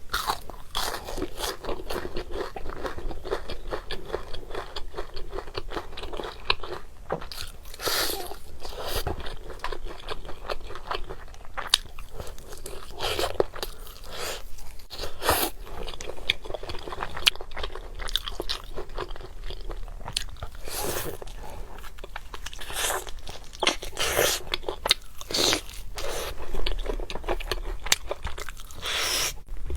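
Close-up crunching bites and chewing of crisp fried food, with many sharp crackly crunches following one another unevenly.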